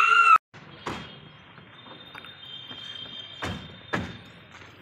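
Vehicle doors thudding shut: one thump about a second in, then two more close together near the end.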